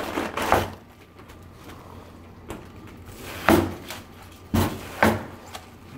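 A chef's knife cutting through a whole head of cabbage on a plastic cutting board: four separate knocks, the loudest about three and a half seconds in.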